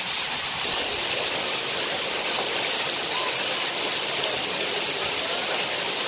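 Waterfall pouring into its plunge pool, heard from right under the falling water: a steady, unbroken rush of water.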